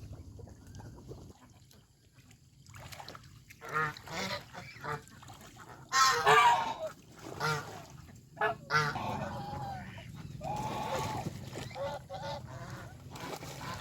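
Domestic geese honking, many calls overlapping after a quiet start, loudest about midway.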